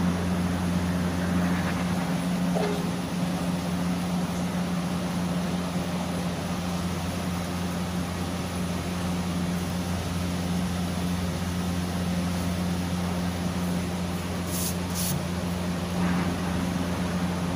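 Window air conditioner running: a steady low mains hum, with two faint high ticks about three-quarters of the way through.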